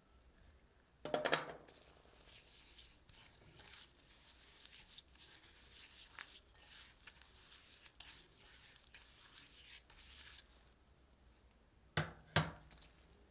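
A spatula scraping and mashing sugar into softened butter against the sides of a glass bowl. There is a knock with a short ring about a second in, and two sharp knocks close together near the end as flour is added.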